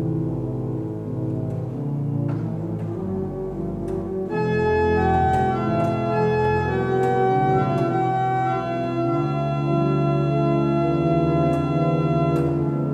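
Church organ playing sustained chords over a bass line, part of an improvisation on Advent songs; about four seconds in a higher, brighter melody line comes in above the chords and the sound grows a little louder.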